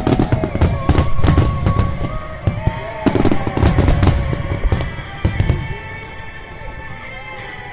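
Fireworks shells bursting in rapid succession with deep booms and sharp cracks, over music playing on loudspeakers. The bursts thin out about five and a half seconds in while the music carries on.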